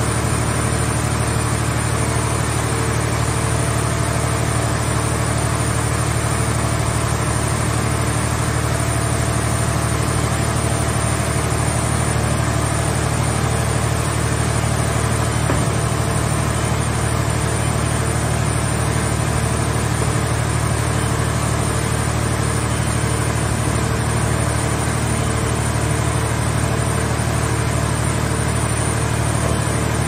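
Scrap car-shell baler's hydraulic power unit running, a steady low drone with faint steady tones above it, while its loader grab arm is worked.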